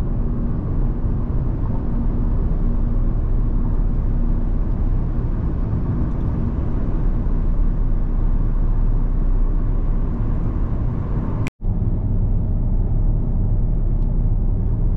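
Car driving at steady speed: continuous road and engine rumble. It breaks off to silence for an instant about eleven and a half seconds in, then carries on.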